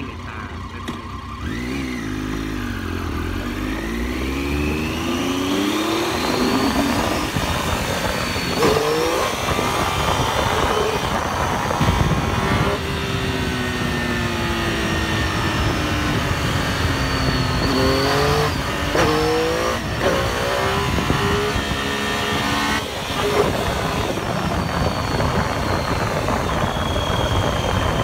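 Motorcycle engine under way. Its pitch climbs as it accelerates and drops back at each gear change, several times over, with wind rushing over the microphone.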